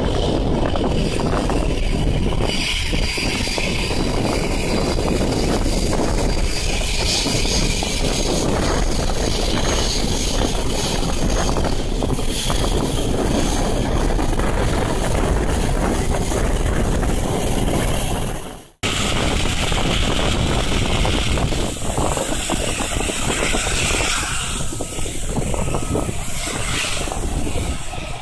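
Jet airliner engines heard as a steady, broad rumble while a twin-engine Boeing 737 climbs away after takeoff. A little over halfway through, the sound drops out abruptly for an instant, then continues as the rumble of another jet airliner on the runway.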